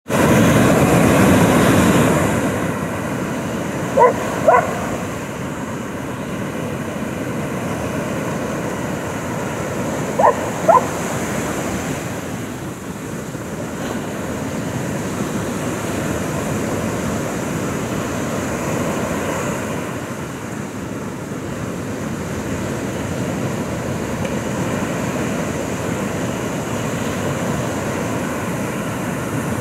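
Ocean surf washing steadily onto the beach, with a border collie barking twice in quick succession about four seconds in, and twice more about ten seconds in.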